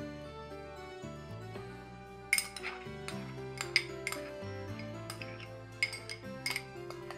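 Glass clinking and tapping as small glass dishes are tipped and knocked against a glass mixing bowl to empty them, a scattered run of sharp clinks starting about two seconds in, over background music with held notes.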